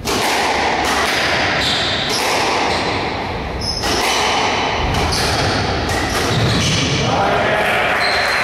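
Squash rally: the ball cracking off rackets and thudding against the court walls at an irregular pace, with echo from the court.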